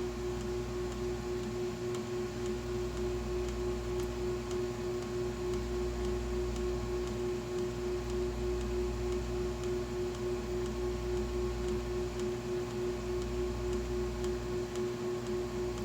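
Small water pump running with a steady hum: a constant mid-pitched tone over a low rumble that slowly rises and falls.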